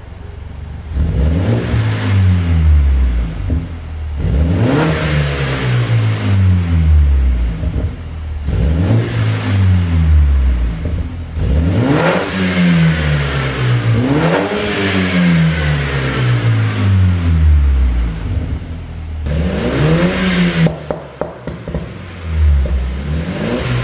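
BMW 528i's turbocharged four-cylinder engine revved in free rev about six times. Each rev climbs quickly and falls back to idle over a few seconds, with some crackles around the peaks. The car runs a tune made to give exhaust pops on the overrun.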